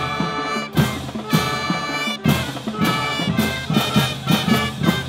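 School marching band playing a lively tune, brass and woodwinds over sharp drum hits on the beat.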